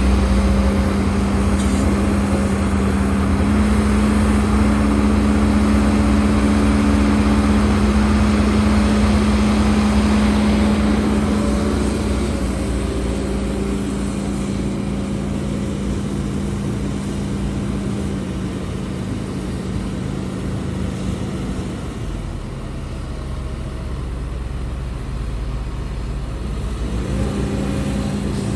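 Diesel engine of a HIDROMEK HMK230LC excavator running under working load, a steady hum whose pitch holds for several seconds at a time and then steps up or down as the load changes. It is noisier in the first half, drops lower about three-quarters of the way through and picks up again near the end.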